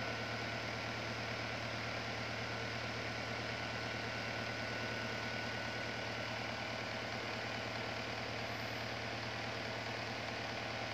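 Small plastic desk fan running steadily: a constant rush of air over a low motor hum, with a thin steady whine on top.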